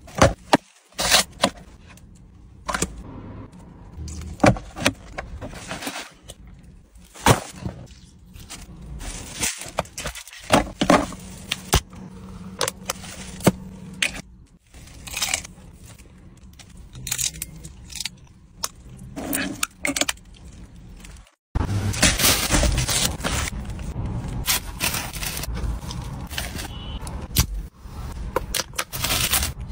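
Close-miked eating and food-handling sounds in quick cuts: sharp crunches, clicks and rustles of paper and foil packaging. In the last third a steadier fizzing hiss follows as an energy drink is poured from a can.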